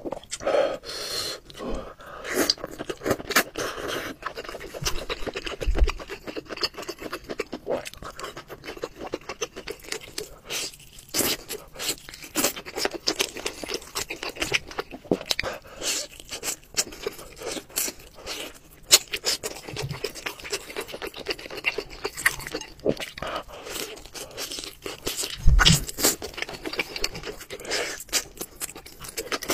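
Close-up eating sounds: chewing and crunching on pieces of crab, with a steady run of wet clicks and crackles. Two low thumps, one about six seconds in and a louder one a few seconds before the end.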